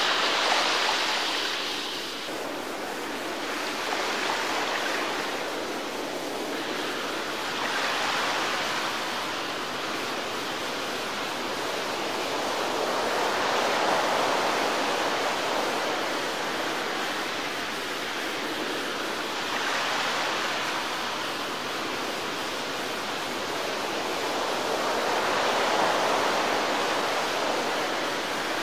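Rushing water around a small boat on open sea, a steady hiss that swells and eases every few seconds.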